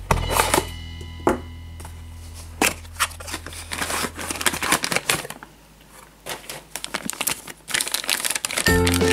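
Cardboard packaging and a plastic bag rustling and crinkling as a model airliner is unpacked by hand. Background music plays under it for about the first five seconds and comes back in loudly just before the end.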